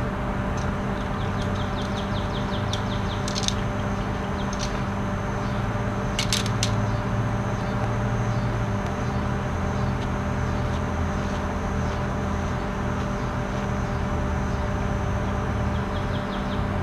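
A steady low mechanical hum, with birds chirping over it: a quick high trill in the first few seconds, a few sharp chirps around six seconds in, and another short trill near the end.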